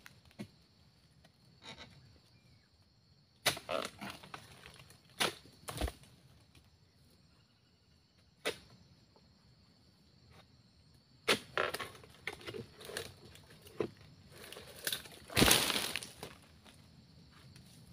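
Chisel blade on a long harvesting pole striking into oil palm frond bases and fruit-bunch stalks in two spells of sharp chops, with heavy thuds as cut bunches and fronds drop to the ground, the loudest near the end. A steady insect buzz runs underneath.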